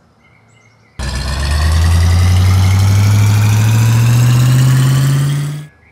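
Engine sound effect for a cartoon crawler crane driving along. It starts abruptly about a second in, rises slowly and steadily in pitch, and cuts off near the end.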